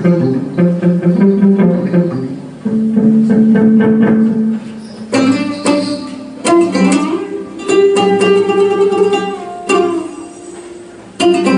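Live music led by plucked string instruments, with guitar-like picked notes and held tones. The playing eases off in short gaps and comes back in fuller near the end.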